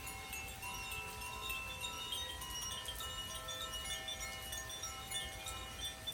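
Hand-played tuned wind chimes ringing: many clear tones at different pitches overlap and ring on, with frequent light strikes of the chime rods.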